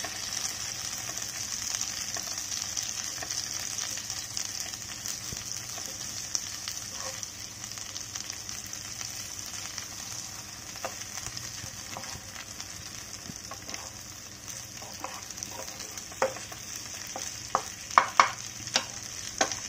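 Stuffed bitter gourds sizzling steadily in hot oil and masala in a pan. From about halfway, a spatula knocks and scrapes against the pan as they are turned and sautéed, with louder knocks near the end.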